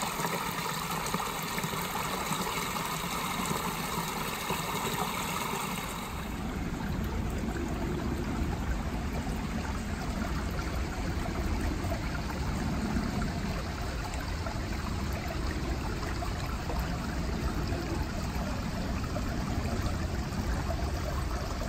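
Small woodland stream, a steady rush of water splashing over a little cascade. About six seconds in it changes abruptly to a duller, deeper flow as the stream runs through a shallow channel.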